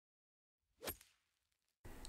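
Near silence broken by a short click a little under a second in, with a fainter click just after it. A faint steady hiss with a low hum starts near the end.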